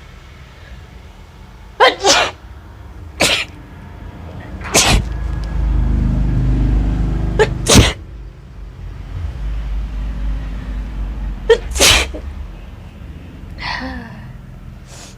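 A woman sneezing again and again, several sharp sneezes a second or more apart, set off by sniffing chilli powder. A short falling vocal sound follows near the end.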